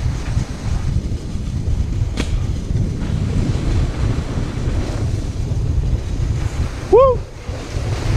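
Wind buffeting an action camera's microphone as a sled slides fast down a packed-snow track, a steady low rumble. About seven seconds in, a short call rises and falls in pitch.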